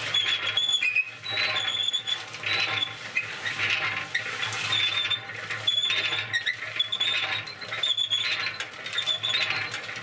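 Electric concrete mixer running, its motor belt-driving the drum through a smaller motor pulley fitted to slow it down: a steady hum with short high squeaks from the drive repeating about once a second as the drum turns.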